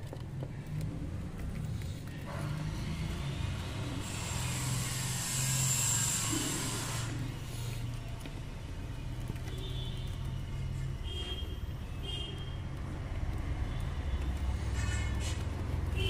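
Steady low engine-like hum of a motor vehicle running, with a hissing swell from about four to seven seconds in. A few short budgerigar chirps come through in the second half.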